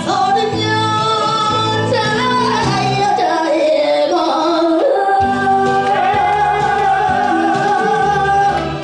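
A woman sings a Korean song live into a handheld microphone over backing music, holding one long high note through the second half.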